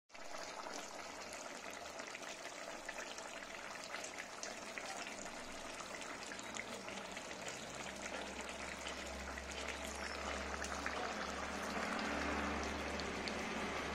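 Food sizzling and crackling as it cooks on the stove: a steady hiss with fine crackles that grows a little louder near the end.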